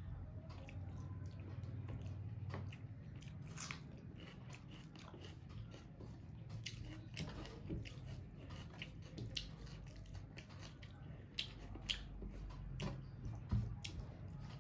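A person chewing a mouthful of rice and moong dal, with many small, scattered wet clicks from the mouth.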